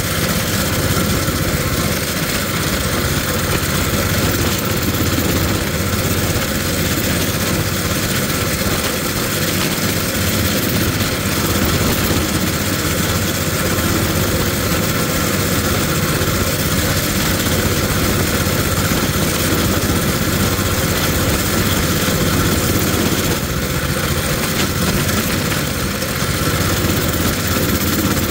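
Coleman mini bike's small single-cylinder four-stroke engine running at a steady throttle while the bike is ridden, heard from on the bike. It eases off slightly about 24 seconds in.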